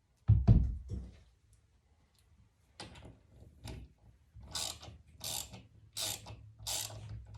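A heavy thump, then a run of short rasping strokes about every 0.7 s from a hand tool being worked back and forth.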